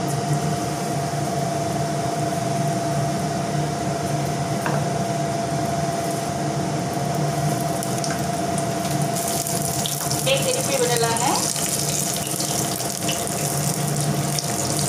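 Batter-coated brinjal slices deep-frying in hot oil: a steady sizzle that grows brighter and more crackly about nine seconds in as more pieces go into the oil.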